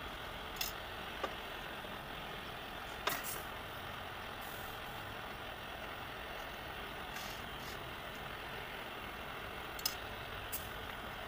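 Steady hiss running without a break, with a few light clicks and taps as the brass panel and solder rod are handled.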